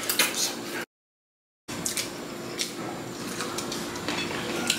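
Spoons and forks clinking and scraping on ceramic plates as people eat, with scattered light clicks over a faint steady hum. The sound cuts out completely for nearly a second about a second in.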